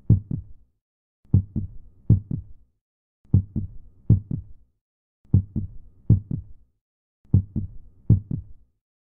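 Heartbeat sound effect: lub-dub thumps, two heartbeats close together then a pause, the pattern repeating about every two seconds.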